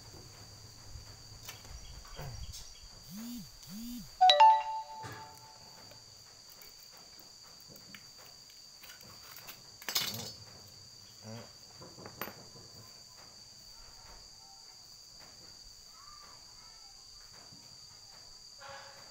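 Steady, high-pitched insect chorus of crickets or cicadas, with light knocks from the tool and cable being handled. About four seconds in there is a loud, short ringing tone, and near ten seconds a sharp click.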